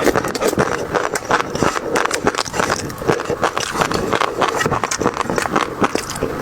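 A person eating close to the microphone: steady, irregular chewing and crunching with many small wet clicks.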